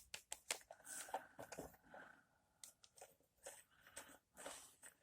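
Faint, scattered clicks and short scratchy scrapes of small hand tools and a plastic HO-scale model passenger car being handled.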